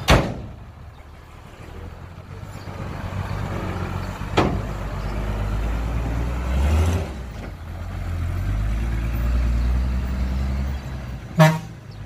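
Heavy diesel engine of earthmoving machinery running with a low rumble, revving up and easing off several times. Sharp knocks come just after the start and about four seconds in, and a louder ringing clank near the end.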